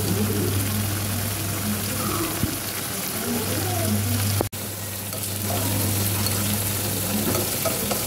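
Dried shrimp in garlic-chili oil and a little water bubbling and sizzling steadily in a pan as the liquid cooks down, over a steady low hum.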